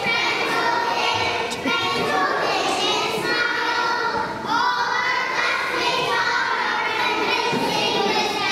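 A group of young children singing a song together, holding notes between short breaks.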